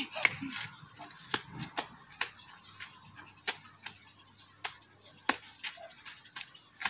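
A skipping rope slapping the dirt ground over and over, in a rough rhythm of about two slaps a second.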